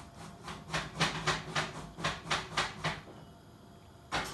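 A cat chewing its food at a bowl: rhythmic clicky chewing, about four a second, over a low steady hum, then one sharper, louder click near the end.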